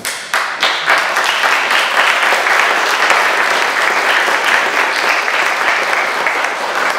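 Audience applause, dense clapping from many hands that builds up quickly within the first second and then holds steady.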